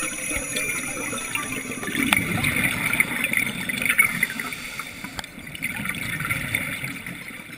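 Scuba divers' exhaled bubbles heard underwater: a bubbling wash with a few sharp clicks that builds about two seconds in and fades near the end.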